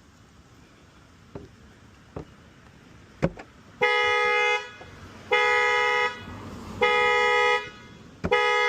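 A few sharp clicks, then the car's horn sounding in a regular pulse: long steady honks of a bit under a second, about one every second and a half, the pattern of a car alarm going off.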